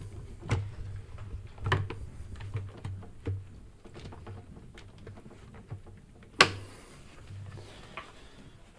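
Hands working a sprung clamping band around a washing machine's rubber door seal: scattered taps, knocks and rubbing, with one sharper knock about six and a half seconds in.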